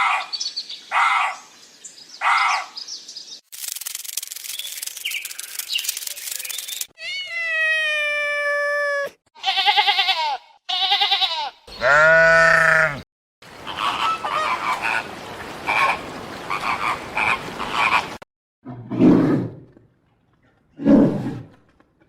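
A string of different animal calls, one short clip after another with abrupt cuts: three short calls, a few seconds of noise, pitched calls, a bleat-like call, several seconds of many animals calling together, then two low calls.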